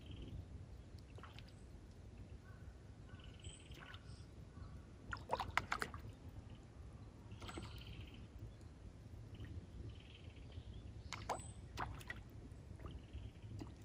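Faint small splashes and plops of a Jitterbug topwater lure being worked across a pond's surface, with a few sharp splashy clicks about midway and again near the end.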